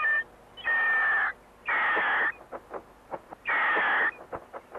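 Cartoon hawk squawking three times, harsh calls about half a second each.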